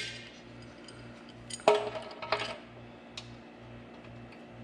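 Metal clinks as the old drain valve is worked loose from the bottom of a steel air-compressor tank. One sharp, ringing clink comes about one and a half seconds in, a lighter one shortly after, and a faint tick later.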